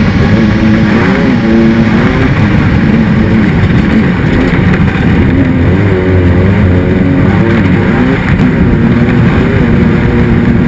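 Off-road race car's engine heard on board, its revs rising and falling continuously under hard driving.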